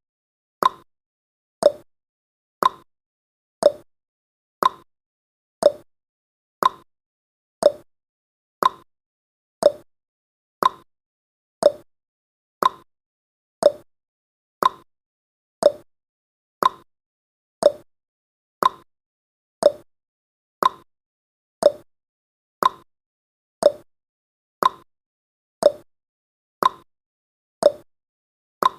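Clock-style tick-tock sound effect of a countdown timer, one tick each second, alternating between a higher and a lower tick.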